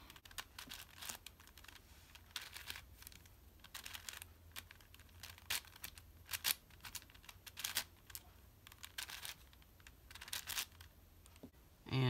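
A 6x6 plastic speed cube's layers being turned by hand, giving irregular runs of quick clicks and clacks as the PLL parity algorithm is performed.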